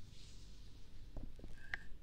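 Faint handling sounds near a binaural ASMR microphone: a soft rustle, a few light clicks and a short high squeak near the end. Under them is a steady low hum of background noise from household appliances left on.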